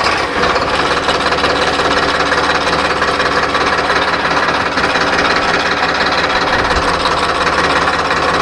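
Farmtrac 60 PowerMaxx tractor's diesel engine running steadily, just after being started.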